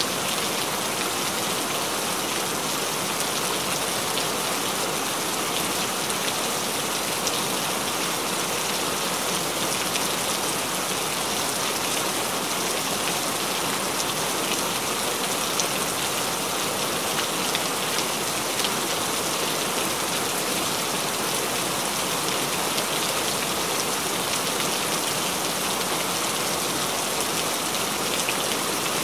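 Steady rainfall: an even hiss with scattered faint drop taps.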